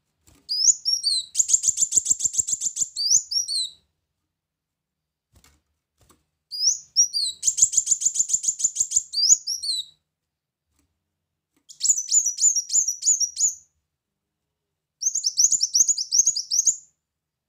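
Brown-throated sunbird (kolibri muncang) singing four bursts of high, rapid trilling, a few seconds apart; the first two open and close with quick rising slurred notes.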